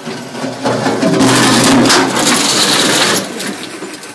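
An excavator crashing down as it is dumped off while being unloaded: a loud, grinding crash of heavy metal that builds within the first second and dies away a little after three seconds.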